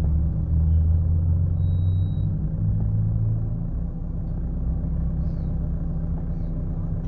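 Vehicle engine idling: a steady low rumble, heard from inside a parked car.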